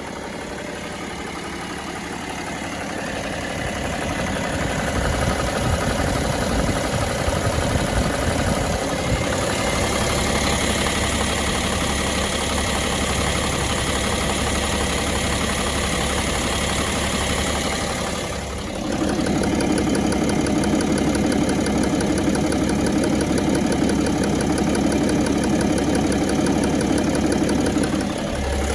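BMW X5 E70's M57 3.0-litre straight-six diesel running with a knock, which the shop put down to a stretched timing chain. The tone of the engine changes about nine seconds in and again about nineteen seconds in.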